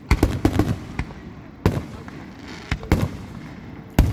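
Aerial fireworks shells bursting in a series of sharp bangs: a quick run of several in the first second, then single reports spaced a second or so apart, with a loud one near the end.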